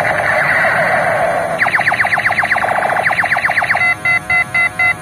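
Battery-powered toy sniper rifle playing its electronic shooting sound effect: a warbling alarm-like tone that turns into rapid falling zaps, then about a second of fast beeping, about five beeps a second, near the end.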